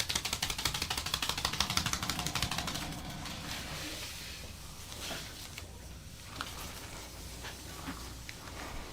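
Rapid, evenly spaced percussive massage strikes on the back, a fast steady drumming that stops about three seconds in. A few light clicks follow.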